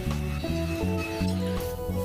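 Background music: a melody of held notes over a bass line, changing note every half second or so.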